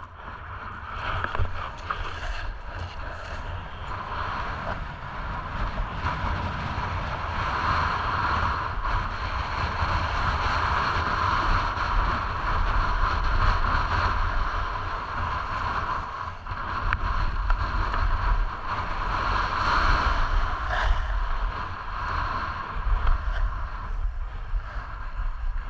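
Wind buffeting an action camera's microphone during a downhill ski run, over the steady hiss of skis sliding on packed snow. It gets louder over the first few seconds.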